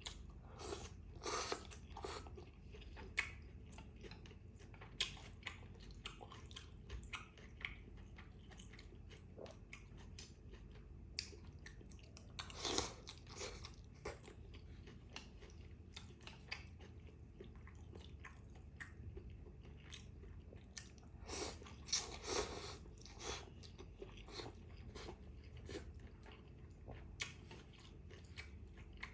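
Close-up chewing and biting of a mouthful of bún trộn bò beef noodle salad, wet mouth clicks with occasional crunches. Louder bursts come near the start, about halfway through and about three quarters of the way in.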